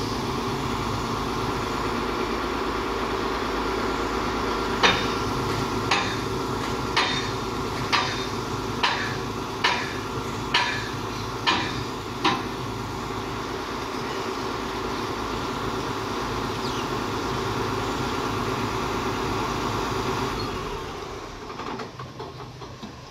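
Large excavator's diesel engine running steadily, with a series of about eight loud metallic clanks roughly one a second. Near the end the engine note drops away, leaving a few lighter knocks.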